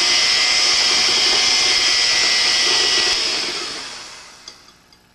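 Electric kitchen mixer running at speed in a bowl of sponge-cake batter, a steady whir, then switched off about three seconds in and spinning down to a stop.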